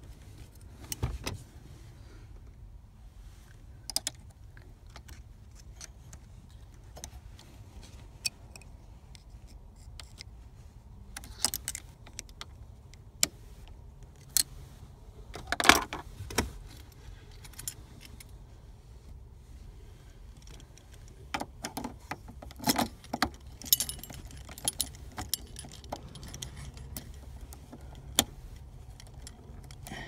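Keys jangling on a key ring and scattered sharp clicks and taps, the loudest about halfway through and a cluster a few seconds later, as a new ignition lock cylinder with its key in it is worked back into a Honda CRX steering column with a pick.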